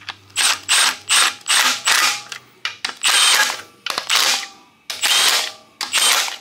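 Milwaukee cordless impact wrench running oil pan bolts into an LS engine block on a really low torque setting, in about nine short hammering bursts, the later ones longer. Each burst starts with a brief high motor whine.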